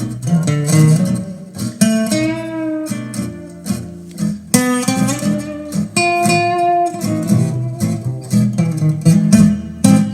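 Guitar music with a strong bass line, played through a Sven SPS-611S desktop PC speaker system in a sound test.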